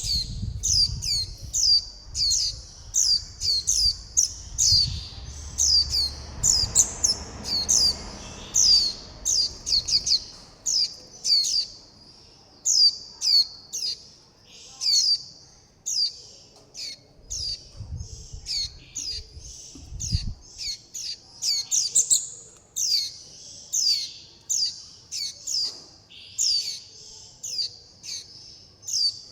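Juvenile white-eyes (vành khuyên) giving rapid, high, thin begging and contact calls, about two a second and often overlapping, each a short downward-sweeping note. These are fledglings calling for the parent and for food. A faint low rumble sits under the first third, with two dull low thumps near the middle.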